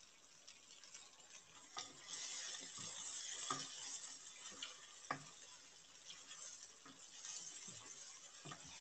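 A spatula stirring chicken in a thick creamy sauce around a karahi (wok), with a faint sizzle of the sauce and a few light knocks of the spatula against the pan.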